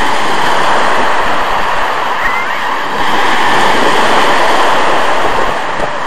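Small Black Sea waves breaking and washing up a pebble beach, a steady loud surf noise that eases slightly and swells again midway, with wind buffeting the microphone.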